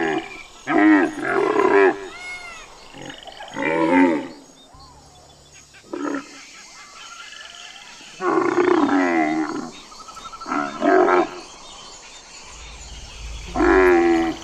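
Camel calling: a series of about six loud, drawn-out calls, each a second or so long, with a wavering, bending pitch and quieter pauses between them.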